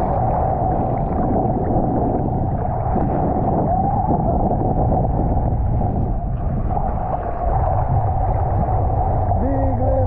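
Shallow sea water lapping and washing around a microphone held just above the surface, with a steady low rumble from wind on the microphone and a steady mid-pitched hum throughout. A voice is heard briefly near the end.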